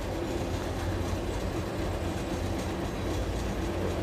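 Steady low rumble and hum of an idling truck engine, heard from inside the cab, with no distinct knocks or changes.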